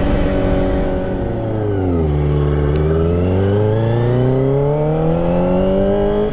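Kawasaki ZX-25R's inline-four engine through a Prospeed Shark high-mount exhaust, under way. The revs fall for about half a second, then climb steadily for about four seconds, and a quick drop near the end marks an upshift.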